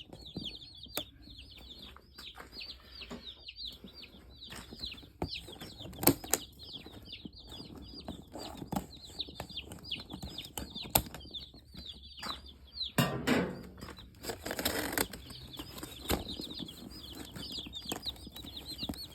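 A crowd of day-old Cornish Cross broiler chicks peeping without a break, many short falling chirps overlapping, with scattered knocks and a louder stretch of scuffling noise about 13 to 15 seconds in.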